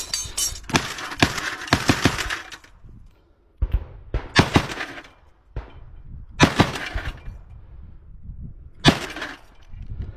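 AGS-17 30 mm automatic grenade launcher firing: a run of shots over the first couple of seconds, then several shorter bursts of sharp reports spaced a couple of seconds apart.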